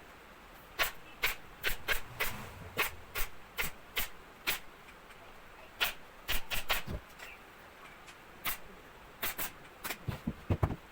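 A series of about twenty sharp clicks and knocks at irregular spacing, some in quick pairs and clusters.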